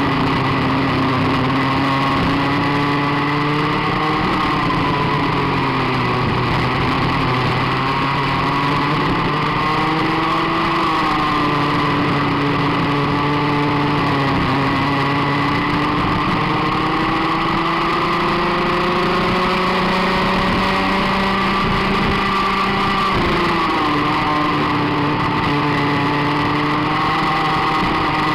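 Rotax Max 125cc two-stroke kart engine running at racing revs, heard from on board. Its pitch climbs steadily and drops back several times, most sharply a little over twenty seconds in, as the revs rise and fall around the lap.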